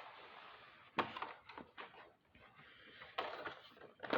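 Toy packaging being handled: a few sharp knocks and scrapes of a cardboard box, about a second in and again about three seconds in, with fainter rustling between.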